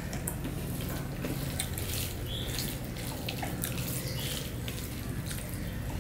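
Fingers squishing and mixing rice with vegetable curry on a steel plate: soft wet squelching with many light clicks of fingertips against the metal, over a steady low hum.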